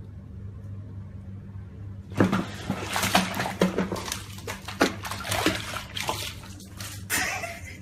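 Bathwater splashing and sloshing as a kitten scrambles in a bathtub: a run of loud, irregular splashes starts about two seconds in, over a steady low hum.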